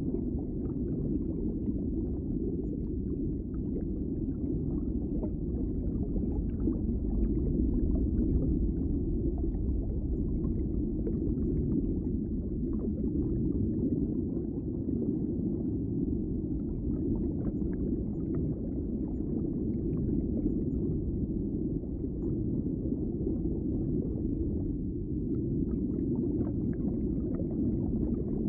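Muffled underwater ambience: a steady low rumble of water, dull and deep, with faint ticks scattered through it.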